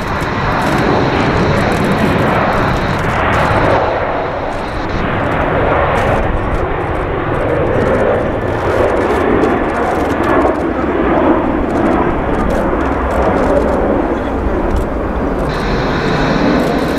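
Airbus A350-900 jet airliner's Rolls-Royce Trent XWB turbofans at takeoff thrust, a steady loud jet rumble as it rolls down the runway and climbs away.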